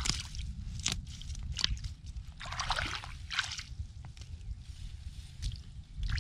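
Hands sloshing and groping through shallow muddy water in irregular wet bursts, with a few sharp small splashes.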